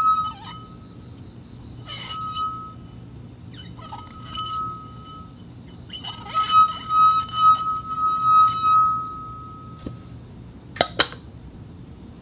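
Glass cup struck repeatedly, ringing with a clear, steady pitch after each tap, with a quick run of strikes in the middle. Two short, sharp clinks come near the end.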